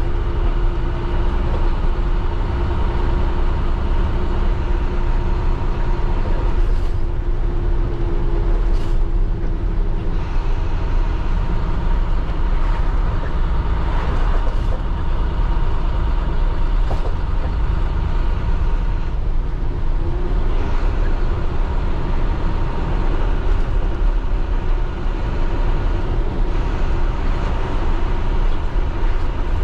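MaxxForce DT inline-six diesel engine of an IC CE school bus running steadily under way, heard from inside the cab.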